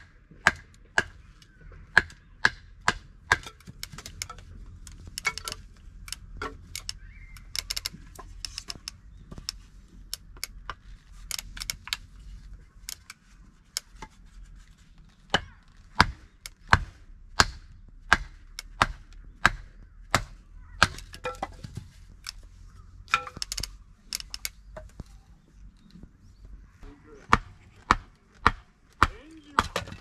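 Repeated sharp chopping strikes, about one or two a second, pausing briefly twice.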